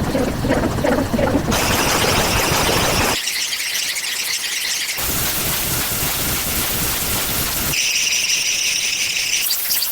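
A run of unrelated sound-effect clips spliced end to end, each cut off abruptly after one to three seconds and replaced by the next. The clips are mostly hissy, noise-like sounds, some high and some low.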